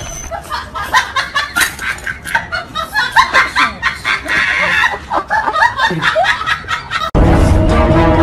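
People laughing in quick, uneven bursts. Near the end it cuts abruptly to loud background music.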